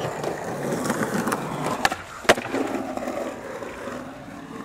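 Skateboard wheels rolling on rough concrete, with sharp clacks of the board striking the ground, the loudest a little over two seconds in.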